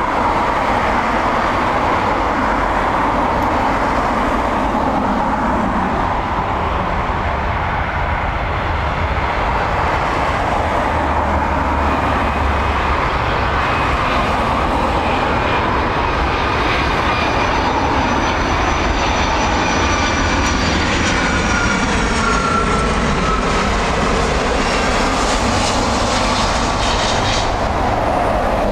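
Boeing 757 airliner on approach, its jet engines giving a steady loud rush with a high whine that slides down in pitch in the second half.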